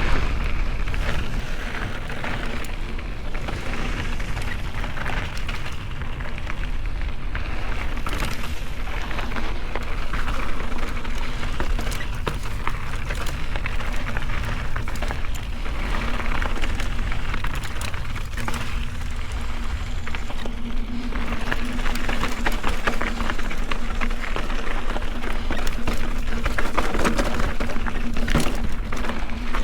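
Mountain bike rolling over a dirt and gravel trail: a steady crunch and crackle from the tyres, small rattles from the bike, and a low rumble of wind on the microphone. A faint steady hum joins in the second half.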